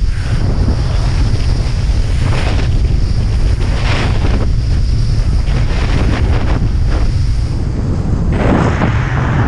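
Heavy wind buffeting the microphone on a moving kiteboard, with water rushing and splashing against the board every second or two.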